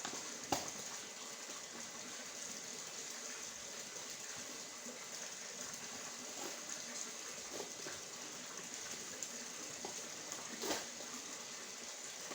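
Steady hiss with a few faint taps, and a sharp click about half a second in and another near the end.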